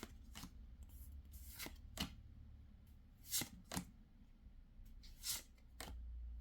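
Pokémon trading cards being handled: a string of short, soft flicks and slides, a few sharper ones a little past the middle and near the end, over a faint low hum.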